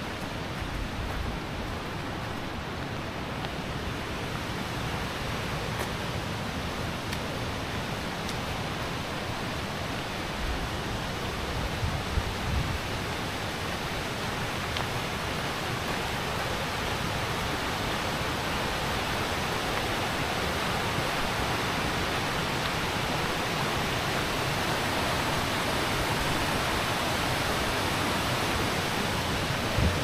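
A waterfall rushing steadily, growing gradually louder over the second half.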